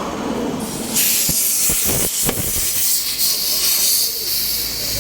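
Compressed air hissing steadily from an air-line chuck as a newly fitted car tyre is inflated, starting about a second in, with a few short knocks just after it starts.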